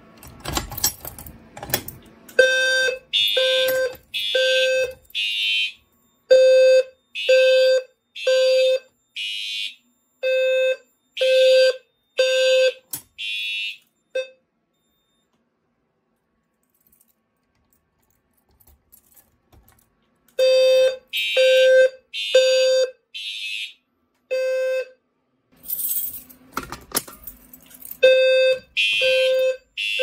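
Fire alarm horns sounding the code-3 temporal pattern: three short blasts, a pause, repeating. The alarm signal that a walk test sets off. They stop for several seconds midway and then start again; a bunch of keys jangles at the start and again near the end.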